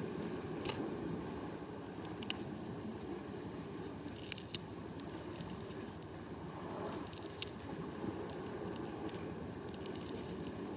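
Steel forceps prying gooseneck barnacles off a rock: a handful of sharp clicks and crunches of shell, a second or two apart, over a steady low background rush.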